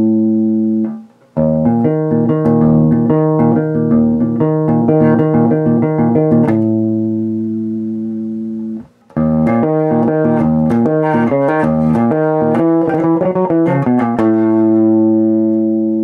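Warwick Rockbass Infinity electric bass played fingerstyle through a bass amp: a ringing held chord, then a quick run of notes, a long sustained chord, a short stop, another quick run, and a final held chord.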